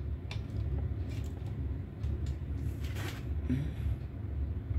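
A few faint clicks and knocks from handling the receiver and its power plug being plugged in, over a steady low hum.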